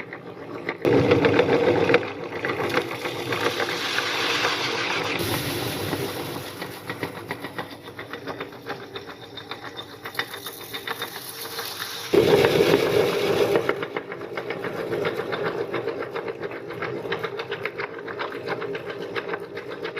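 Meat grinder running with a rapid, even mechanical chatter as it works through puffed rice. It grows louder for a second or two about a second in, and again around twelve seconds in.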